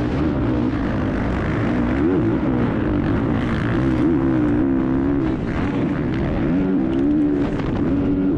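Onboard sound of a Honda CRF450 four-stroke single-cylinder motocross bike at racing speed. The engine note climbs and drops repeatedly with throttle and gear changes, over steady wind and dirt noise.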